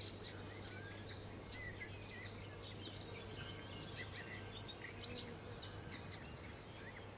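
Several wild birds singing, a dense mix of short chirps, whistles and quick trills, over a faint steady low hum.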